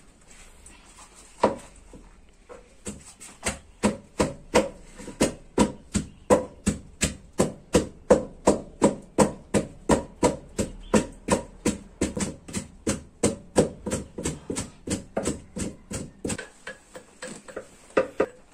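Wooden pestle pounding pepper in a wooden mortar: a steady run of knocks about twice a second, thinning out and stopping just before the end.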